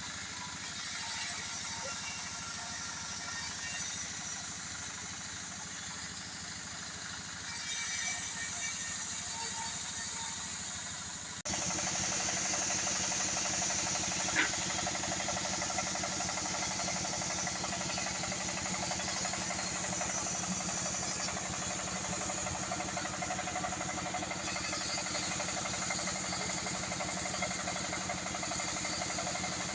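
Engine-driven sawmill machinery running steadily. It becomes abruptly louder at a cut about eleven seconds in, with a single short click a few seconds later.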